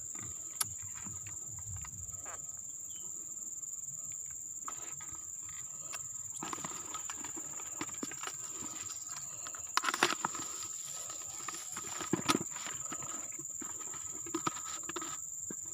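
Insects buzzing steadily at a high pitch, over rustling leaves and a series of plastic clicks and knocks from a bait tub being handled. The knocks are loudest about ten and twelve seconds in, and a last pair comes as the tub's lid is pressed shut near the end.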